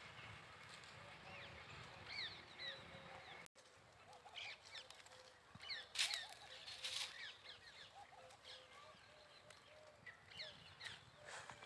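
Faint outdoor ambience of small birds chirping in short, scattered calls, with two louder sharp sounds about halfway through.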